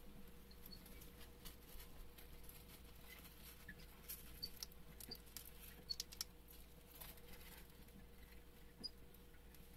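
Roborovski dwarf hamsters eating from a ceramic food bowl: faint scattered clicks and crunches of nibbling and of food pieces shifting under their paws, a little louder for a moment about six seconds in.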